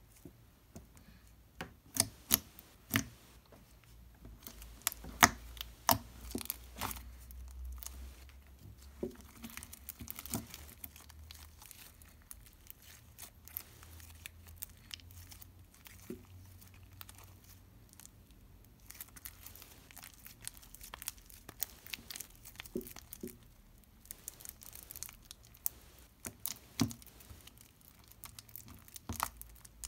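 Sticky slime being stretched, pulled apart and kneaded by hand into Play-Doh, giving irregular wet clicks, pops and tearing crackles. The loudest sharp clicks come in the first several seconds, and the mix tears into strands as it is worked.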